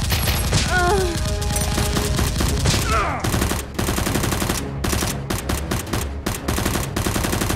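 Rapid, continuous automatic-gunfire sound effects dubbed over a toy-blaster shootout, the shots coming many per second, over low steady background music.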